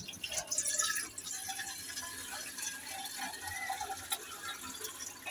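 Tap water running and splashing into a steel pot held in a stainless-steel sink, a little louder in the first second.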